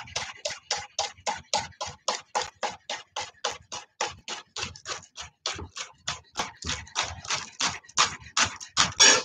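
Chef's knife thinly slicing scallions on a wooden cutting board: a steady run of knife strokes tapping the board, about four a second.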